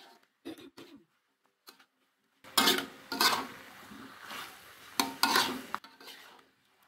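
Spatula scraping against a wok while tossing and turning stir-fried vegetables. A few light strokes come in the first two seconds, then louder scrapes at about two and a half, three and five seconds in.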